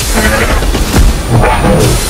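Dramatic trailer-style music with a heavy low boom about a second in.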